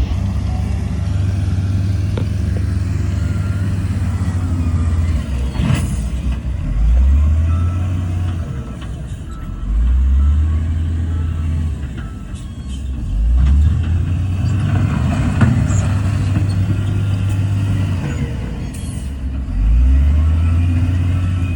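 Heavy diesel engine of earthmoving machinery running under load, revving up in repeated swells as it works. A reversing beeper sounds faintly and steadily, with occasional metal clanks.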